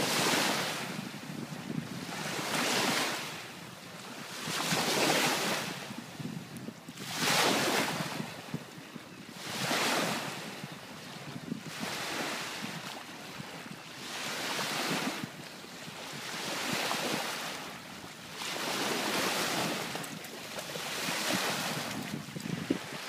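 Small waves breaking and washing up on a sandy beach, one every two to two and a half seconds, each a swelling rush of hiss that falls away.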